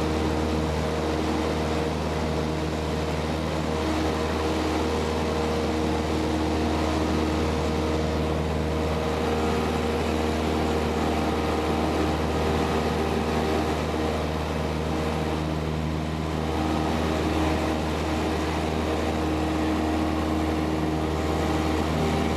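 Cessna 172 light aircraft's piston engine and propeller droning steadily at constant power.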